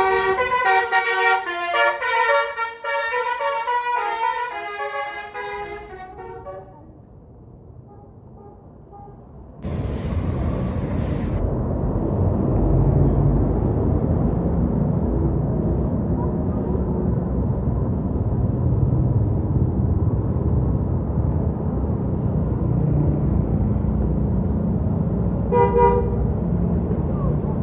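A tour bus's multi-tone telolet 'basuri' horn plays a quick tune of changing notes for about six seconds. After a lull and a short hiss, a bus engine rumbles steadily past, with one short horn blast near the end.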